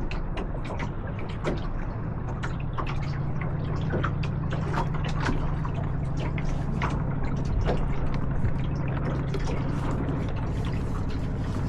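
Lake water splashing and gurgling against a small sailboat's hull in a dense, irregular patter, over a steady low rumble.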